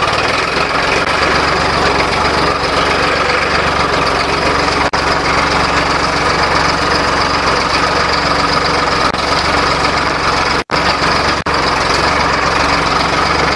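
Farmtrac 60 tractor's diesel engine running steadily under load while pulling a disc plough through the soil. The sound drops out briefly three times.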